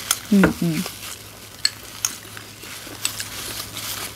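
A spoon clicking and scraping lightly in a bowl of banana tapioca pudding, small scattered clicks over a light hiss. A short two-syllable murmur from a voice comes about half a second in.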